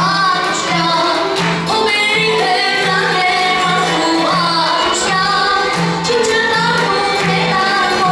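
A girl sings a melody into a microphone over a backing track, with a low bass note pulsing at an even pace about twice a second.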